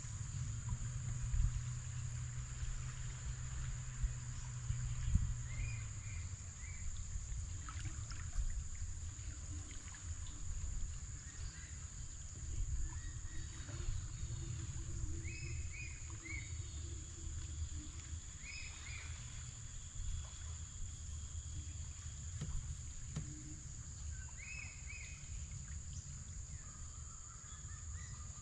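Tropical riverside ambience: a steady high-pitched insect drone, short bird chirps a few notes at a time every few seconds, and a low rumble of the river current and wind around the aluminium boat, heavier in the first few seconds.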